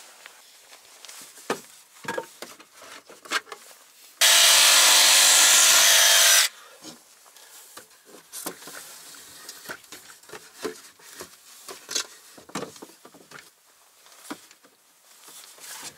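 Wood and tools being handled, with light knocks and rubs, and a cordless power tool run loudly for a little over two seconds, starting and stopping sharply, about four seconds in.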